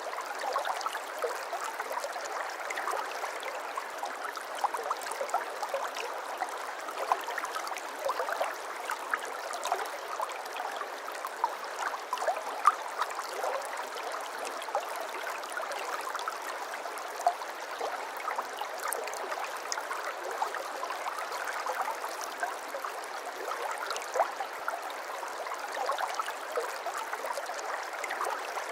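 Water flowing and burbling steadily in a small stream, with a constant splashing hiss dotted with little gurgles and drips.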